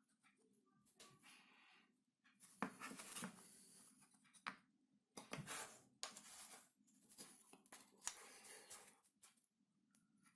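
Faint, intermittent scraping and rustling in short strokes, like hand work on a small piece of wood or paper, with brief gaps between.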